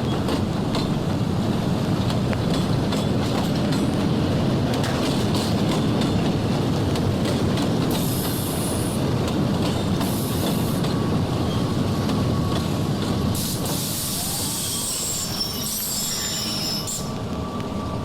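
Railroad train running on the track: a steady heavy rumble with clacking from the wheels, and high-pitched wheel squeal in short spells about eight and ten seconds in and a longer one from about thirteen to seventeen seconds.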